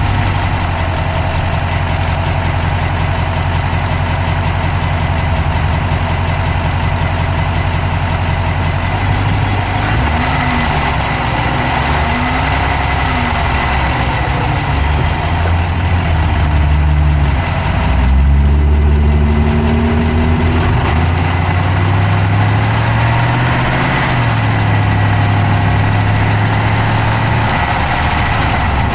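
Dodge Charger Hemi V8 idling, heard up close in the engine bay, with a fast clicking running through it. The engine speed wavers in the middle and rises briefly about two-thirds of the way in.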